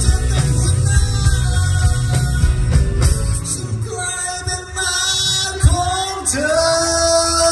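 Live rock band with a male lead singer singing into a microphone. About halfway through, the bass drops away and the voice holds long notes over lighter backing.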